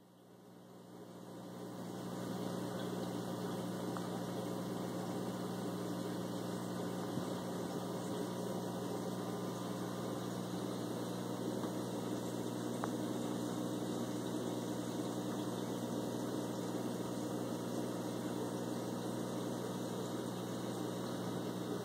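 Steady low electric hum of a reef aquarium's pumps, with an even hiss over it, fading in over the first couple of seconds.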